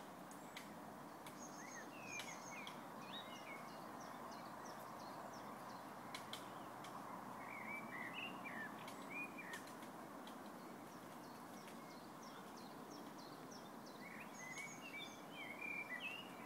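A songbird singing short, varied warbling phrases three times, several seconds apart, over steady background noise, with a few faint scattered ticks.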